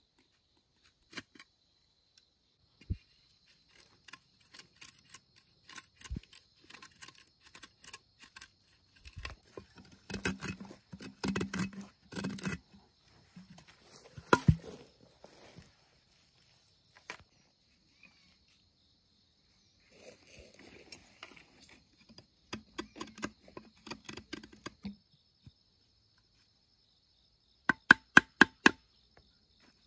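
Irregular clicks, knocks and scrapes of handwork, with busier stretches in the middle, ending in a quick run of about seven sharp knocks. A faint, steady, high insect drone runs underneath.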